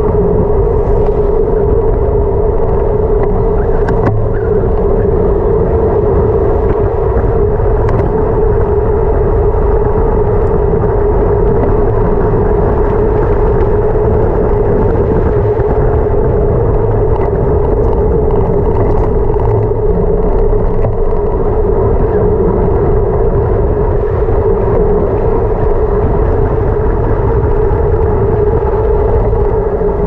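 Steady rush of wind over the microphone mixed with tyre noise from a road bike descending fast on asphalt, carrying a constant mid-pitched hum.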